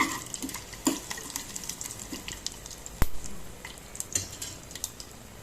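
Tempering spices and dried red chillies sizzling in hot oil in a pan while being stirred, with scattered clicks and scrapes of the spoon against the pan and one sharp knock about three seconds in.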